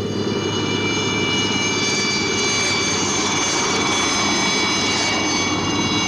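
Light helicopter running on the ground, a steady turbine whine with several high tones over a rushing engine and rotor noise.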